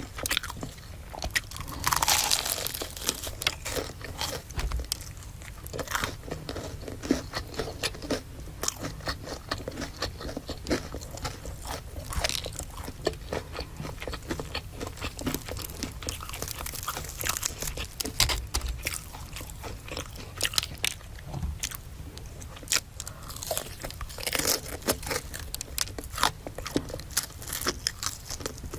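Close-miked biting and chewing of crunchy food, a dense run of crunches and mouth clicks, with a louder noisy burst about two seconds in.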